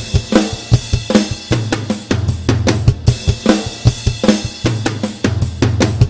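Background music: a driving drum-kit beat with bass drum, snare and cymbals over a bass line.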